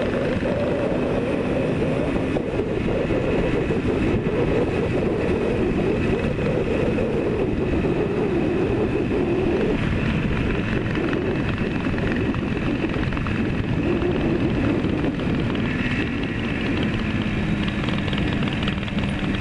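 Yamaha RD400's air-cooled two-stroke parallel twin running steadily on the move, heard from the rider's helmet with wind rush over the microphone. The engine note drifts up and down a little with the throttle.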